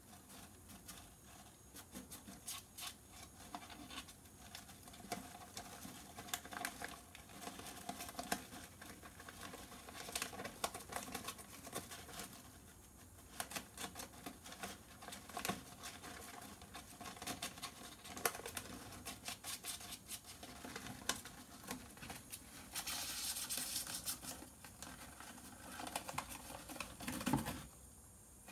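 Syrian hamster digging and burrowing in shredded paper bedding: irregular rustling, crinkling and scratching, with a longer, denser stretch of rustling about two-thirds of the way through.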